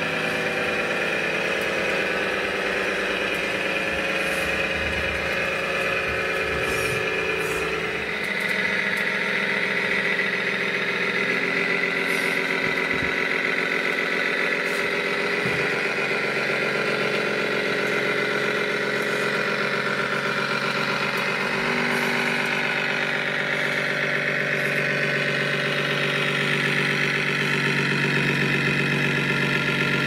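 Simulated diesel truck engine sound from an RC cab-over truck's sound module, idling and running steadily, with the engine note shifting about a quarter of the way in and again later on.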